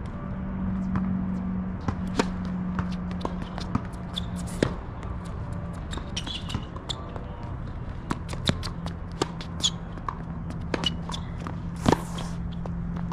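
Tennis ball play on a hard court: a string of sharp, irregularly spaced knocks from the ball coming off racquet strings and bouncing on the court, over a steady low hum.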